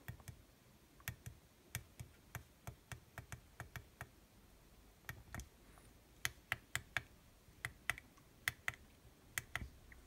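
Small tactile push buttons on a USB electronic dummy load clicking faintly under a fingertip: about two dozen quick presses with a short pause midway. The presses step the load's current setting up from 1.85 to 1.9 amps.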